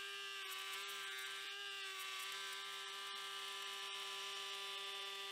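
DeWalt router with a bearing-guided flush trim bit running at one steady, high motor pitch as it trims a solid maple rocker to its template. Heard faint throughout.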